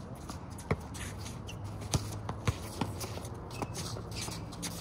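Sneakers shuffling and scuffing on an outdoor asphalt basketball court, with three sharp thuds of a basketball bouncing in the first two and a half seconds, over a steady low hum.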